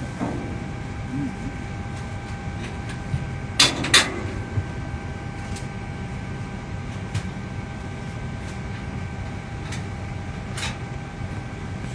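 Steady hum of an airliner cabin's ventilation, with a faint steady whine over it. About three and a half seconds in come two sharp knocks a moment apart, the loudest sounds, and a few lighter clicks follow later.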